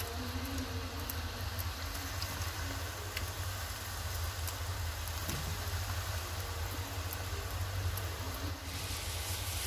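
Potato fingers deep-frying in hot oil in an iron kadhai: a steady bubbling sizzle with scattered small crackles, over a low steady hum. The oil is still bubbling hard, which the cook takes as the sign that the fries are not yet done.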